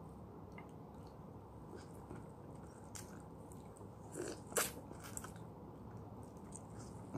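A person biting into and chewing a fresh lemon wedge: small wet mouth clicks, with a louder bite about four and a half seconds in.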